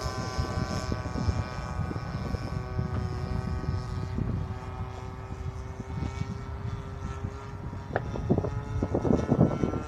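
Model Yak 52's DLE 20 RA single-cylinder two-stroke gasoline engine and propeller droning steadily as the plane flies overhead. Wind buffets the microphone in the last couple of seconds.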